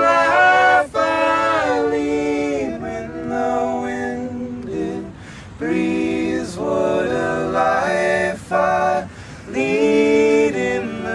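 Unaccompanied voices singing a cappella. They hold long notes in phrases, with short pauses about five seconds in and again about nine seconds in.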